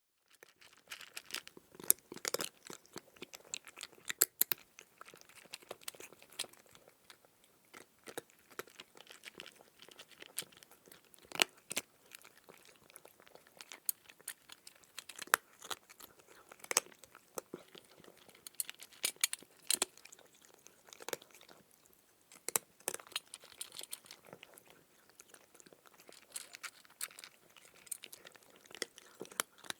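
A cat crunching dry kibble, many short irregular crunches and chewing clicks in quick succession.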